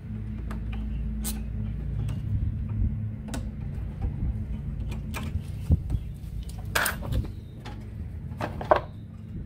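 Scattered clicks and metallic clinks of a screwdriver and a spring being worked on a lawn mower's drive-cable bracket, with two louder scraping clinks near the end. A steady low hum runs underneath and fades about halfway.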